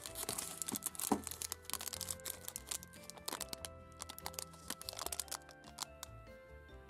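Plastic chocolate-bar wrappers crinkling and crackling as they are picked up and handled, busiest in the first second or so, over steady background music.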